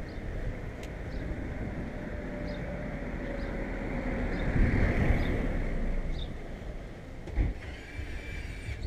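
Bicycle ride recorded on a bike-mounted camera: wind buffeting the microphone and tyres rolling on asphalt in a steady low rumble. A car passes the other way about halfway through, where the sound is loudest.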